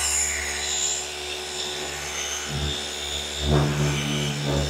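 Flex FX3331 24V cordless gear-driven orbital polisher running steadily as it buffs car paint in section passes, with two brief swells in its sound in the second half.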